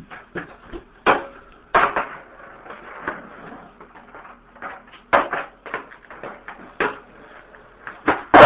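Skateboard knocking and clattering against the floor: a string of irregular knocks, the loudest about a second in, near two seconds, and around five and seven seconds.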